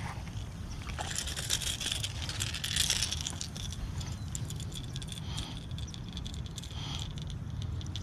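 Small smallmouth bass shaking on a Super Spook topwater lure as it is landed: a rapid run of rattling clicks from the lure and its treble hooks, busiest between one and three seconds in and thinning after.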